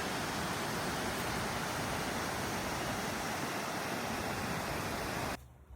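Steady, even rush of water pouring down, most likely over the lake's dam, which cuts off abruptly near the end.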